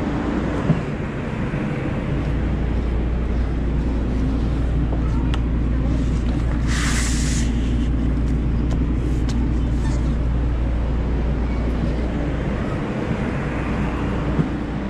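Light-rail train running, heard from inside the car: a steady low drone and motor hum with small rattles, and one short hiss about seven seconds in.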